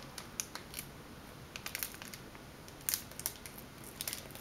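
Faint, scattered crinkles and clicks of a foil booster pack being worked at, a pack that is proving hard to open.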